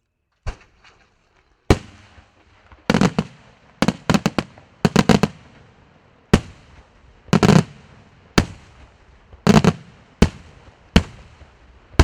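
Fireworks going off: a string of loud, sharp bangs about once a second. Some come singly and some in quick clusters of two to four, and each trails off in a rolling echo. The first bang breaks out of silence about half a second in.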